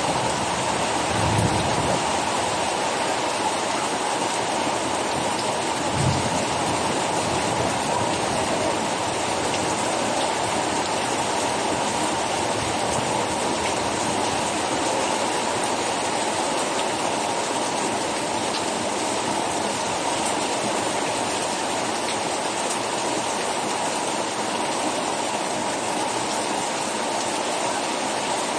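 Rain falling steadily, with a couple of short low thuds about a second and a half and six seconds in.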